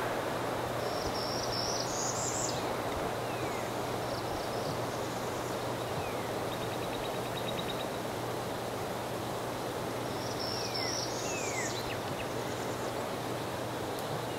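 Steady outdoor background noise with small birds calling over it: a high, thin song phrase twice, about a second in and again about two-thirds through, short falling whistled notes scattered throughout, and a brief buzzy trill in the middle. A faint low hum runs underneath.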